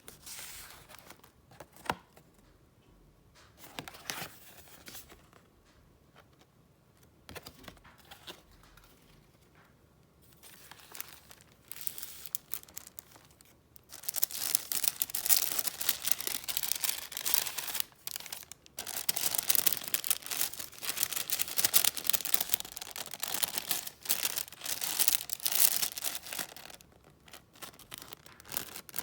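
Paper being handled by hand: a few soft taps and rustles, then from about halfway dense, continuous crinkling and tearing-like rustling, with a brief pause in the middle of it.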